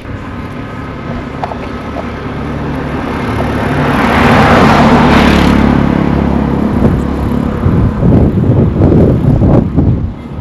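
A motor vehicle drives past close by: its engine hum and tyre rush build to loudest about halfway through, then fade away. In the second half, gusts of wind buffet the microphone.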